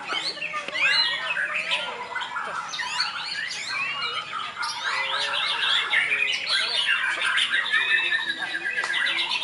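Many caged white-rumped shamas (murai batu) singing at once, competing in a songbird contest: a dense, unbroken tangle of overlapping whistles, rising sweeps and rapid trills.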